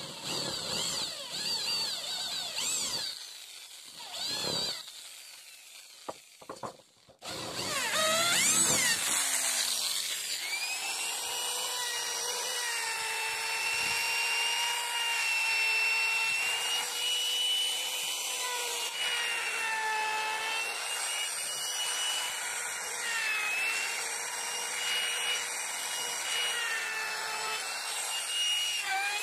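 A corded electric drill runs in short revving bursts, boring into a wooden board. About seven seconds in, a small corded wood trimmer router spins up and runs steadily with a high whine, cutting a rounded profile along the board's edge.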